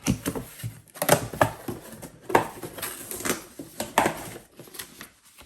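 Packaging being handled as a box is opened and unpacked: irregular rustles, scrapes and knocks, the loudest near the start and about 1, 2.5, 3.3 and 4 seconds in.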